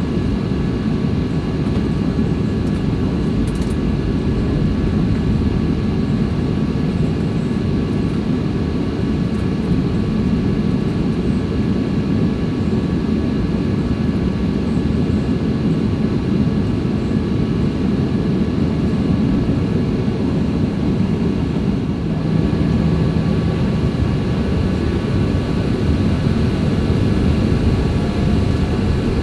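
Steady drone of a Boeing 737-800's CFM56 jet engines heard from inside the cabin: dense low rumble with a few thin, constant whining tones over it.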